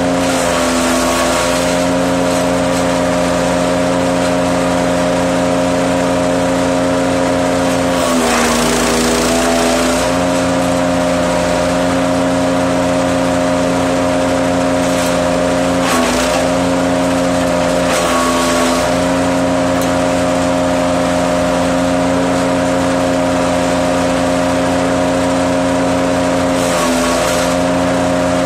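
Wood chipper running steadily at full speed. It briefly bogs down and recovers about five times as branches are fed in and shredded, with a crunching chipping noise each time, the longest around eight to ten seconds in.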